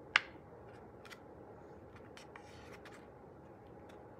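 Light handling of paper, a curved paper cup cutout rubbing and crinkling as it is pressed and held onto a card, with one sharp click about a quarter second in and a few fainter ticks later.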